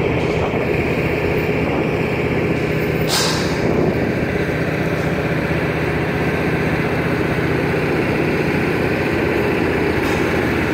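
Engine of a 1987 30-ton crane running steadily, with a brief hiss about three seconds in.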